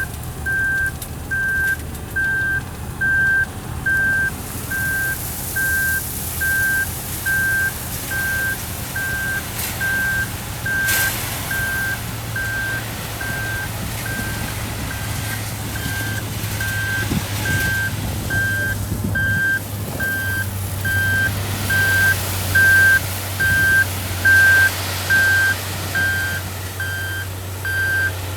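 Reversing alarm on a heavy earthmoving machine, beeping steadily about once a second over the machine's low engine running.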